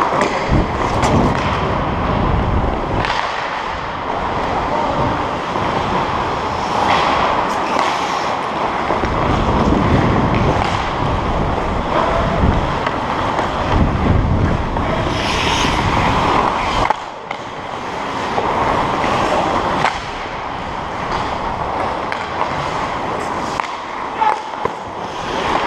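Ice hockey skate blades gliding and scraping on the ice, close to a helmet-mounted camera, with sharp clacks of sticks and puck scattered through it.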